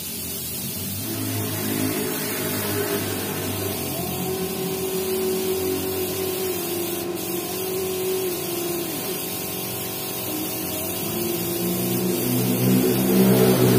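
Spray gun hissing steadily as epoxy primer is sprayed onto bare, sanded car-body steel. Under the hiss a motor runs with a pitch that shifts several times, and it grows louder near the end.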